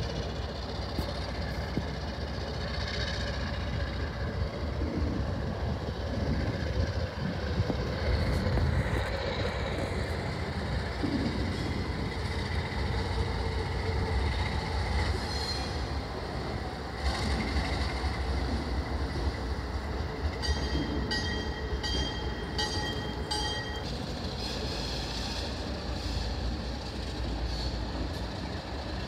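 Diesel switching locomotive 1835 working and its passenger cars rolling slowly on the rails, with a steady low engine rumble. A run of evenly repeated high metallic rings, about two a second, comes for a few seconds past the middle.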